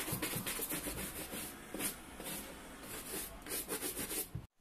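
Hand brush scrubbing the suede upper of a boot in quick, uneven back-and-forth strokes, brushing off loose flaking suede fibres after wet cleaning. The strokes stop abruptly near the end.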